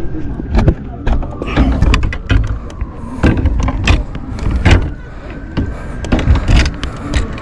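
Long-reach lockout tool knocking and scraping inside a fire truck's door, in irregular sharp clicks, over a steady low rumble.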